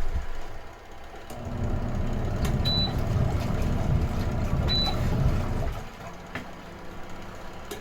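A low mechanical rumble that starts about a second in and stops about six seconds in, with two short high tones two seconds apart and a few light clicks.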